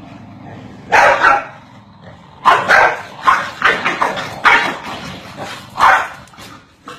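Corgis barking: one bark about a second in, then a quick run of barks, one more a second later and two fainter barks near the end.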